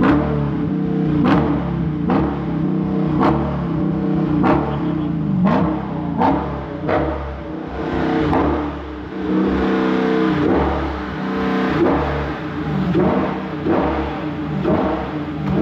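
Dodge Charger exhaust as the engine is revved from the driver's seat in repeated short blips, about one a second, the pitch rising and dropping back each time, with a longer held rev in the middle.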